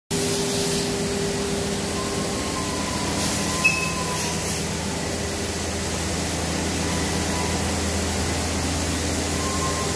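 Steady drone and hum of running workshop machinery, with one short click about three and a half seconds in.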